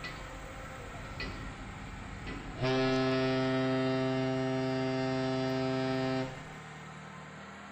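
A loud, steady pitched hum that starts abruptly about two and a half seconds in and cuts off abruptly about three and a half seconds later. Before it there is fainter background noise with a couple of soft knocks.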